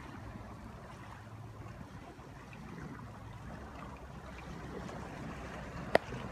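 Small waves lapping on a gravel beach, a steady soft wash. Near the end there is a single sharp click.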